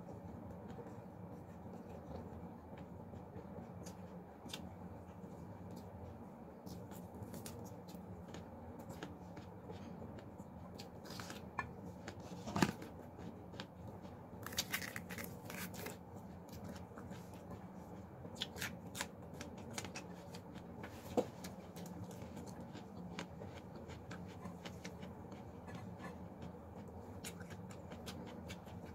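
Eating and food-handling sounds: scattered small clicks and crackles of fingers tearing pieces of charred fried chicken and pulling at a bell pepper over a plate, over a faint steady low hum. The sharpest clicks come about midway, with a short run of crackles just after.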